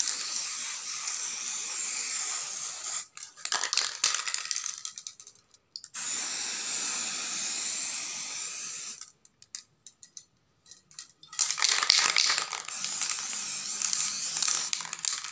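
Aerosol spray-paint can spraying in several long hissing bursts of a few seconds each, with short pauses between them.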